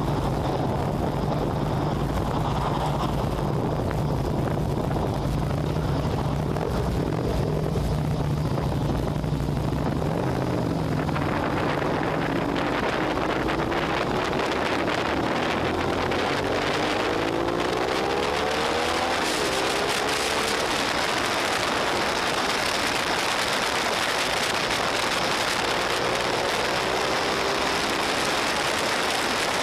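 Suzuki SV650's V-twin engine idling steadily, then revving up and shifting up through the gears as the motorcycle pulls away about ten seconds in and accelerates, one rising pitch after another. Wind noise on the microphone builds as speed rises, and the engine climbs through another gear near the end.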